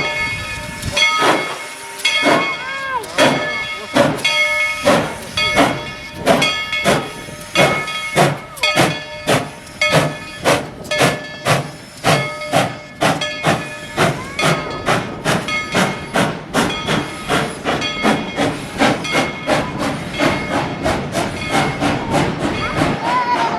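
Steam locomotive exhaust chuffing as the train gets under way, the chuffs quickening from about one a second to two or three a second, with steam hissing and steady tones ringing over it.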